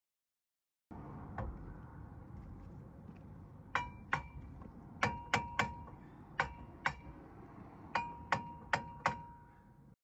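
Hammer blows on metal, about ten sharp strikes in quick groups of two to four, each ringing briefly.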